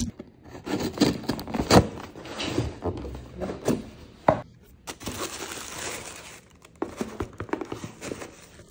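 A cardboard box being opened by hand, with sharp knocks and scraping from the lid and flaps, then tissue paper rustling and crinkling from about halfway as it is pulled aside.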